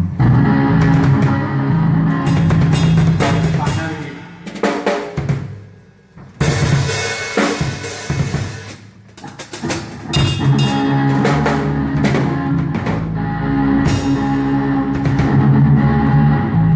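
Rock band playing live at a sound check: a drum kit with snare, kick and cymbal crashes over held electric guitar and bass notes. There is a brief break about six seconds in, then a long cymbal wash.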